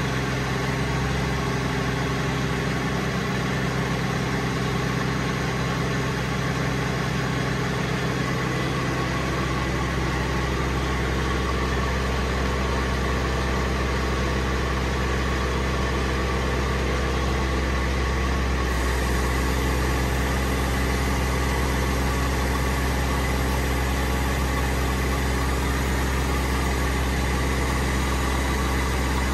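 Diesel engine idling steadily, a continuous low hum.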